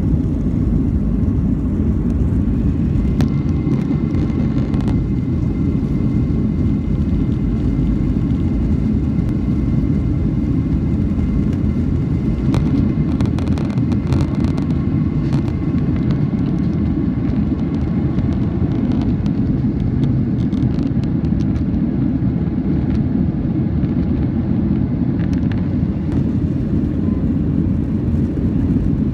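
Boeing 737 jet engines at takeoff thrust, heard from inside the cabin as a loud, steady rumble through the takeoff roll, liftoff and initial climb.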